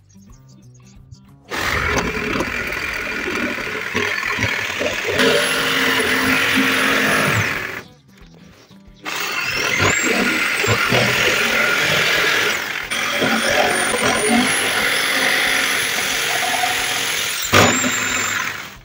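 Electric jigsaw cutting through a wooden board, starting about a second and a half in: a steady rasping cut with a high motor whine, in two runs of several seconds. The saw stops briefly in the middle and its whine rises as it starts again.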